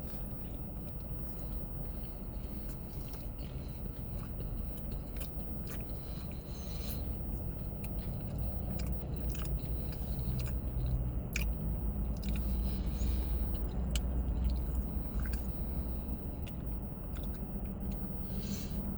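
A person chewing a mouthful of turkey sandwich, with many short wet clicks and smacks of the mouth, over a steady low hum.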